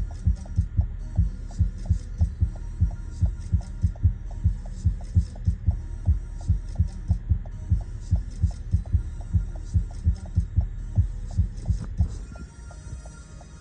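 Bass-heavy music from a car stereo: a deep kick-drum beat thumping about three times a second, which stops about twelve seconds in, leaving a low hum.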